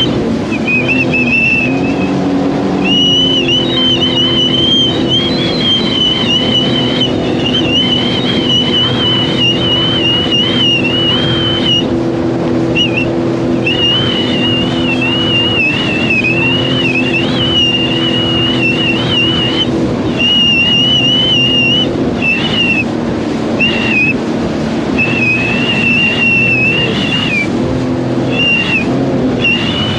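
Sea-Doo GTR 230 personal watercraft's supercharged three-cylinder Rotax engine running at a steady cruise. A high whine over it wavers and cuts out briefly a few times.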